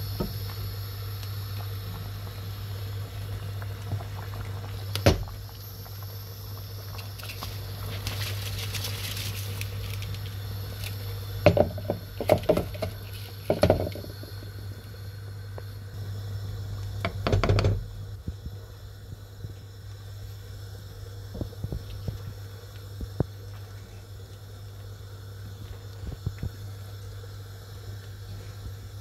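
Liquid boiling in a pan as a wooden spoon stirs it, with a few sharp knocks and clatters against the pan about a third and halfway through while rice goes into the boiling broth. A steady low hum runs underneath.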